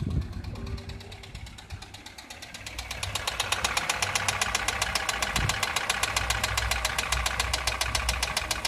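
Toyota 2SZ-FE 1.3-litre four-cylinder engine running with a fast, even ticking knock from the valvetrain, which gets louder and sharper about three seconds in. The owner suspects clogged oil passages starving the hydraulic lash adjusters, leaving excessive valve clearance.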